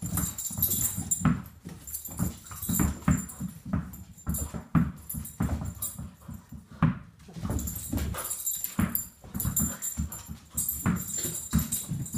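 Tennis balls bouncing and rolling on a hardwood floor while a dog scrambles among them, an irregular run of many dull thuds with scattered sharper clicks.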